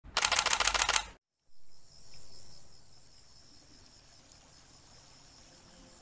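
A rapid burst of camera shutter clicks for about a second, then, after a brief gap, faint forest ambience with a steady high-pitched insect drone.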